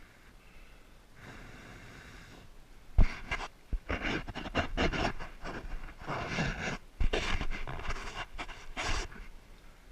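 A person panting heavily, with repeated noisy breaths, broken by a couple of sharp knocks, the loudest about three seconds in.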